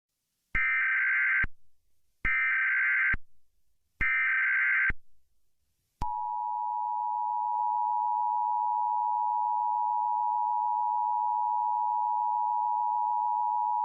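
Emergency Alert System SAME header: three bursts of screeching data tones, each about a second long, with short gaps between them. About a second later the EAS attention signal starts, a steady, loud two-note tone held to the end.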